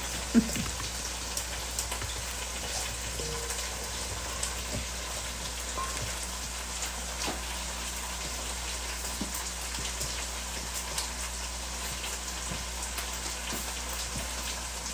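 Gloved hands tossing wet glass noodles and vegetables in a stainless steel bowl: a steady wet rustling and crackling, with a couple of light knocks at the start.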